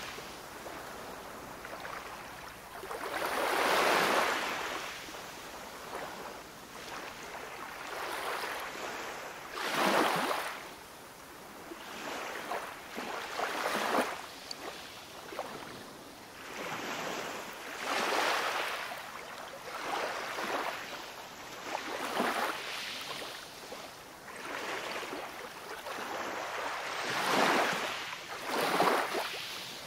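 Ocean surf: waves washing in as a steady hiss that swells into a louder rush and falls away every few seconds.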